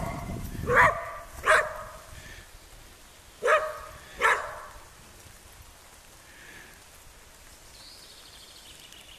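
A whippet barking: four short, sharp barks in two pairs. A faint falling whistle near the end.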